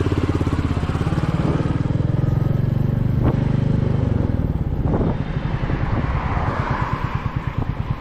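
Royal Enfield Meteor 350's single-cylinder engine running with its thudding exhaust beat. The revs drop about five seconds in, leaving a slower, more distinct beat.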